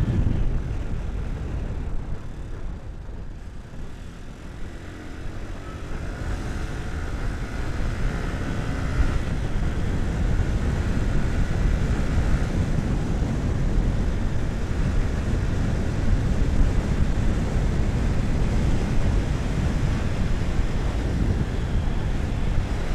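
Motorcycle being ridden on a road: a rush of wind over the bike-mounted camera's microphone with engine and road noise. About five seconds in, an engine note rises as the bike speeds up.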